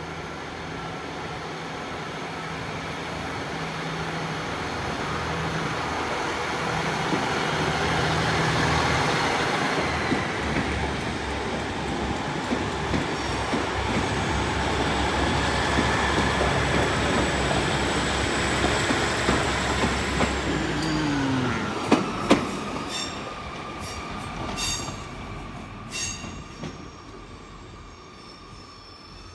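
Two coupled Class 150 Sprinter diesel multiple units pulling out, their underfloor diesel engines droning and growing louder as the train goes by. About two-thirds of the way in, the engine note drops and fades. The wheels click over rail joints as the last car passes.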